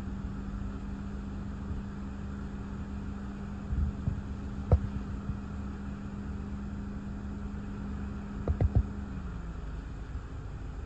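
Gusty storm wind rumbling, heard from inside a car, under a steady low hum that stops about nine seconds in. A few soft thumps and a sharp click come around four to five seconds in, and a quick run of three thumps comes just before the hum ends.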